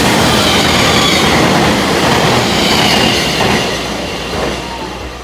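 Long passenger train passing through a station at speed: a loud, steady rush of wheels on rail with a thin high squeal at times. It fades away from about three and a half seconds in as the train draws off.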